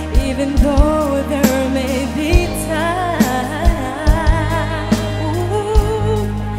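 A woman singing a ballad live into a microphone, holding notes with vibrato, over a band accompaniment of steady low notes and regular drum hits.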